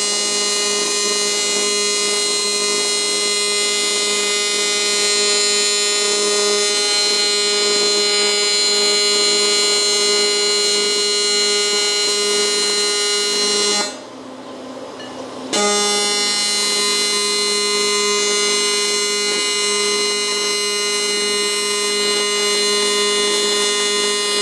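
AC TIG welding arc buzzing steadily while aluminum bronze filler is brazed onto cast iron. The arc breaks off about 14 seconds in, is struck again under two seconds later, and buzzes on.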